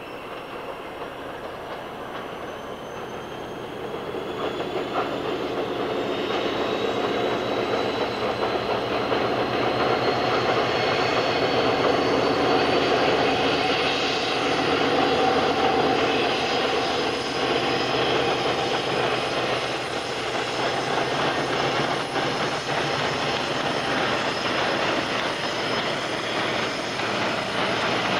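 Diesel locomotive hauling a freight train past, engine running and wagon wheels rolling over the rails, growing louder over the first ten seconds and then staying loud as the wagons go by. A faint high whine rises slowly in pitch throughout.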